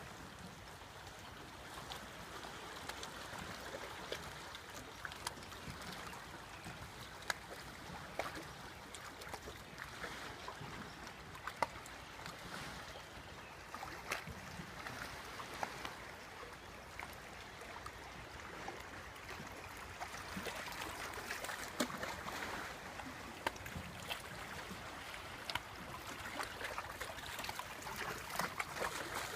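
Shallow seawater lapping and splashing gently, with many small trickles and clicks of moving water.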